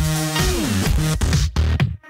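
Electronic dance music with a steady beat, and a synth note that slides down in pitch about half a second in.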